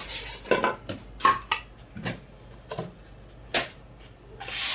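A cardboard box and its styrofoam packing being handled: a series of light knocks and taps, then a louder, longer rubbing rustle near the end.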